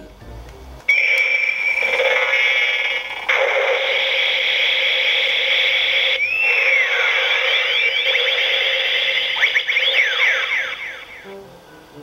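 Kamen Rider Ichigo Typhoon toy belt playing its electronic transformation sound effect through its small built-in speaker. It is a steady high electronic tone that starts about a second in, gets louder about three seconds in, swoops up and down in pitch in the middle and again near the end, and stops about eleven seconds in.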